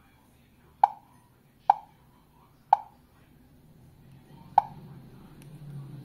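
Four short plop-like key-press clicks from a smart alarm hub's touchscreen as it is tapped through its menus: three about a second apart, then one more after a pause.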